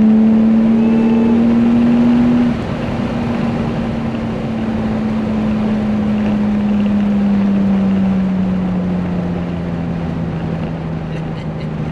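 BMW E36 M3 inline-six heard from inside the cabin, running in gear with a steady drone whose pitch sinks slowly as the revs fall. It gets quieter about two and a half seconds in, over road and wind noise.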